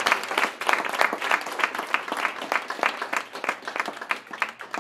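Audience applauding: many hands clapping in a dense, irregular run that thins out and dies away near the end.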